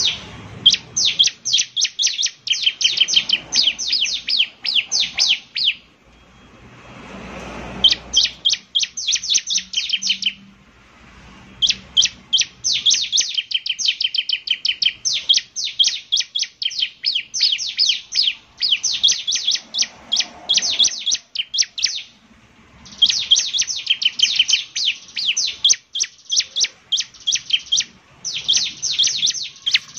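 Bar-winged prinia (ciblek) singing: long runs of rapid, sharp, high chattering notes repeated many times a second, in several bursts with brief pauses between them.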